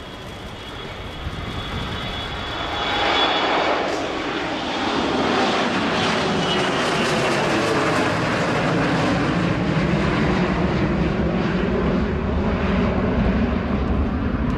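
Bombardier Global 6000 business jet taking off, its two rear-mounted Rolls-Royce BR710 turbofans at take-off thrust. The jet noise grows louder about three seconds in as the aircraft lifts off and climbs away, with a high whine that fades, then holds loud and steady.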